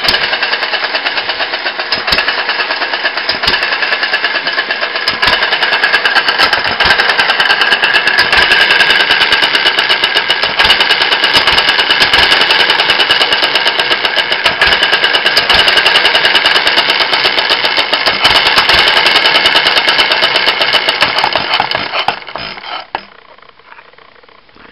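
Homemade open-crank petrol engine, freshly rebuilt with new gaskets, running steadily with a fast stream of firing beats, then dying away and stopping near the end.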